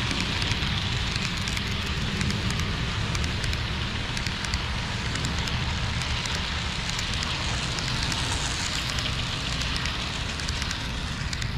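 HO scale model train running on the layout track: a steady low rumble with a dense crackle of wheel and rail-joint clicks.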